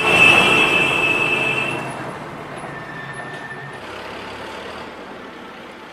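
Road traffic noise: a vehicle going by, loudest in the first two seconds with a high steady whine over a hiss, then settling into a quieter steady rumble.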